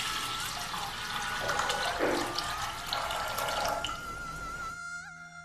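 Water poured into a pressure cooker holding soaked bamboo rice, a continuous splashing pour that stops about four and a half seconds in. Soft background music follows.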